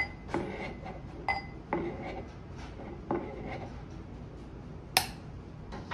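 Metal catch cup of a Timemore Sculptor 078 coffee grinder being set against its magnetic mount and taken off again: about six sharp metallic clicks and clinks, each with a short ring, the loudest about five seconds in.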